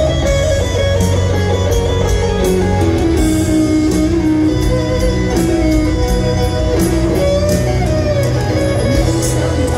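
Live rock band with an electric guitar solo on a Les Paul, the lead playing held notes with bends over bass, drums and piano, heard through a stadium PA from among the crowd.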